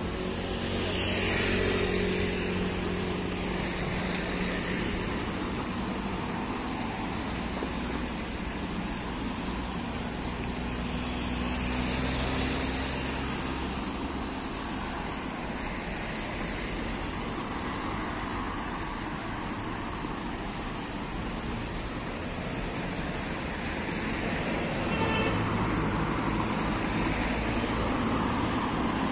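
Street traffic: cars passing on the road, their noise swelling and fading, once near the start, again about twelve seconds in, and over the last few seconds.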